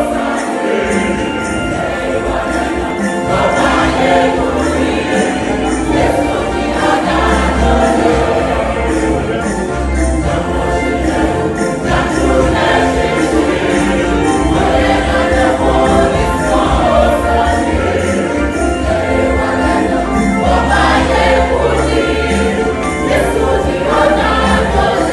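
Mixed church choir singing an upbeat song, accompanied by a Yamaha electronic keyboard with a steady bass line, and a jingling percussion beat.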